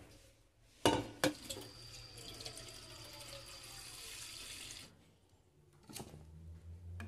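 A cooking pot knocks twice as it is lifted off the dish rack, then tap water runs steadily into it for about three and a half seconds and stops. Near the end there is a sharp click as the pot goes onto the gas stove, followed by a low hum.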